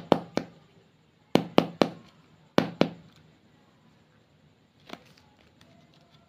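Sharp snapping clicks in quick runs of two or three, then a softer single click, from slime and clay being handled.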